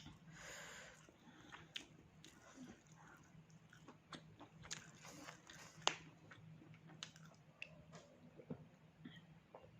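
Faint close-up chewing and biting while eating pork, with scattered small clicks and crunches from the mouth.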